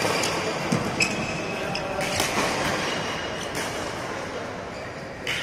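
Badminton rally: rackets striking a shuttlecock about six times at uneven intervals, with short squeaks of shoes on the court floor.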